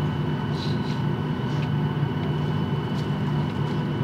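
Steady drone of a jet airliner's engines at low power, heard from inside the cabin, with a thin high whine held on one pitch above it.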